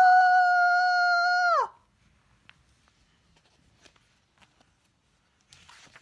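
A person's high-pitched scream, held for about two seconds, rising at the start and dropping as it cuts off: a reader acting out a cartoon elephant's 'Aaaaaaagggghhh!!!'. A paper page turns near the end.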